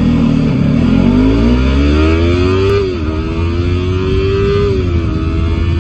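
Stock 2019 Yamaha R3's 321 cc parallel-twin engine accelerating hard under full throttle. Its revs climb, fall sharply at an upshift about three seconds in, climb again and fall at a second upshift about five seconds in, then hold. It is heard from inside the rider's helmet.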